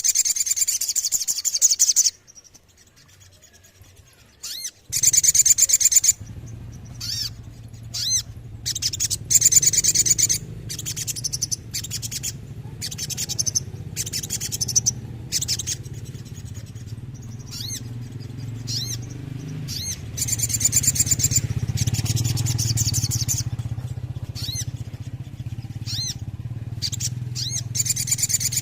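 Sogon (little spiderhunter) singing: high, fast rattling trills of a second or two each, repeated several times, with sharp single high notes between them. A steady low hum runs beneath from about five seconds in.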